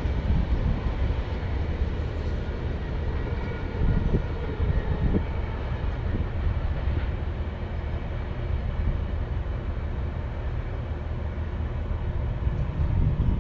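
Last cars of a freight train rolling away over the rails: a steady low rumble with a few wheel clicks about four to five seconds in.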